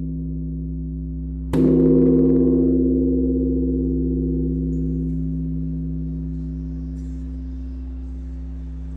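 Deep struck metal percussion instrument hit once about a second and a half in, its several steady tones ringing on and slowly fading; before the stroke, the ring of an earlier one is dying away.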